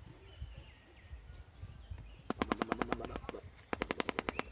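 Shoebill clattering its bill in two rapid bursts of sharp knocks, about twelve a second, like machine-gun fire, starting about halfway through. It is the hungry shoebill's attention call, begging for food.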